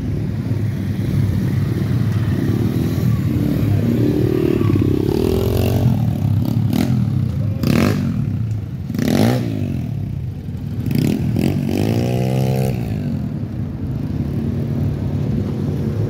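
Motor-vehicle engines running and revving several times, the pitch rising and falling over a steady low drone, with a few sharp knocks in the middle.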